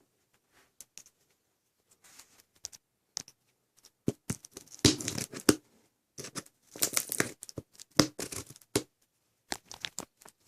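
A shipping package being opened by hand: irregular tearing, scratching and crinkling of tape and packing material. A few faint clicks come first, and the handling grows busier and louder about four seconds in.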